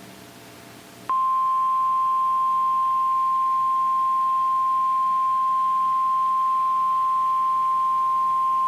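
NOAA Weather Radio 1050 Hz warning alarm tone: one steady, loud beep that starts about a second in and holds unchanged. It signals that a warning-level alert, here a special marine warning, is about to be read.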